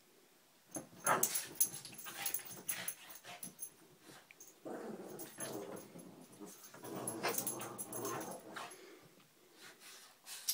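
Two Boston terriers play-growling as they wrestle, in rough bouts that die down near the end.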